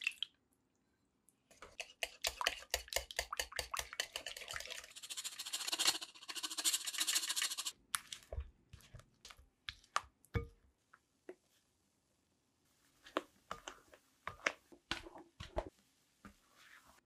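Wire whisk beating batter in a glass bowl: a fast, steady run of clicking and scraping strokes for about six seconds, then slower, scattered taps and scrapes as the mixing goes on.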